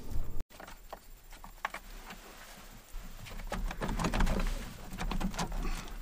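Gloved hands working the plastic air intake duct loose on a 4.3L Vortec V6, faint at first and then, from about halfway in, a run of small clicks, knocks and rubbing of plastic and rubber over a low rumble.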